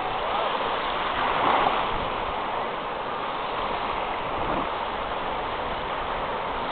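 Ocean surf washing in the shallows: a steady rush of small breaking waves and moving water.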